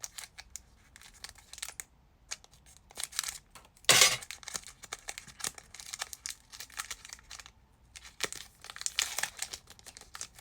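Foil wrapper of a Pokémon card booster pack crinkling and being torn open, with one loud rip about four seconds in and more crackling near the end.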